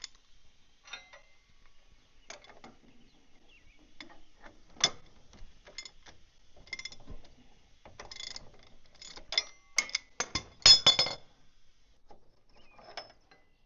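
Steel tools and parts clinking and clattering, a series of irregular sharp metallic clicks that ring briefly. The clicks come closer together and grow loudest about ten seconds in.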